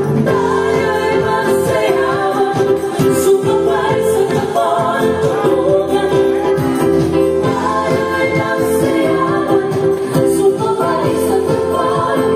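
Music with singing: a song with voices holding long notes over band accompaniment.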